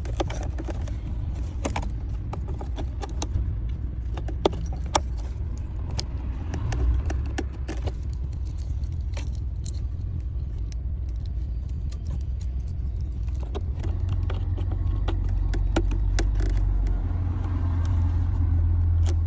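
Scattered sharp metallic clicks and clinks of hand tools and plastic wiring connectors being handled and fitted. Under them runs a steady low engine-like rumble that grows louder in the last few seconds.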